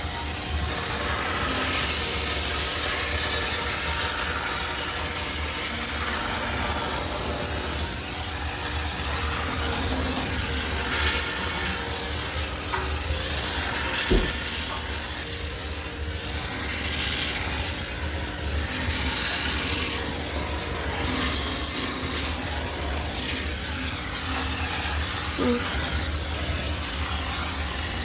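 High-pressure steam cleaner jetting steam with a steady hiss that swells and dips as the nozzle is moved over a washing machine, over a low steady hum.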